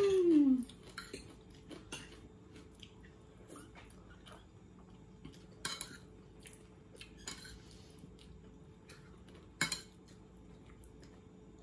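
Cutlery clinking and scraping against plates during a meal: scattered light clicks, with louder clinks about 6 seconds in and again near 10 seconds. A short hummed "mm" opens it.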